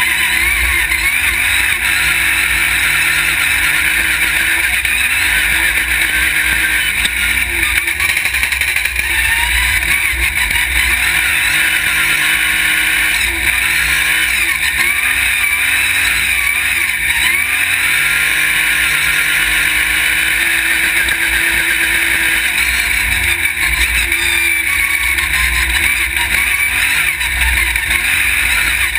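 Off-road race buggy's engine running hard, heard on board, its pitch rising and falling over and over as the throttle opens and closes, over a constant rush of wind and rumble.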